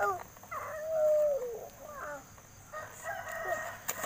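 Rooster crowing: one long crow that holds its pitch and sags at the end about a second in, followed by further crows, the last starting near the end.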